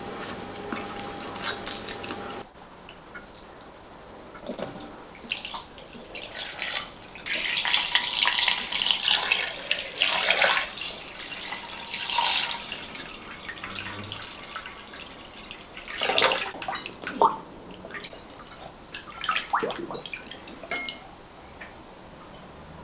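Water poured from a jug into a glass bowl of raw pigeons: a steady splashing pour lasting several seconds. It is followed by a few short splashes as hands rinse the birds in the water.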